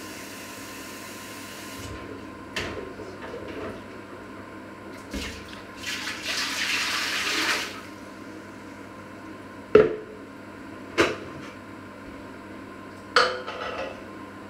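Kitchen tap running, which stops about two seconds in; later water rushes from the tap into a plastic measuring jug for about two seconds. A few sharp knocks and clatters of kitchenware follow, the loudest a little past the middle, as the filled jug is set down on the wooden worktop.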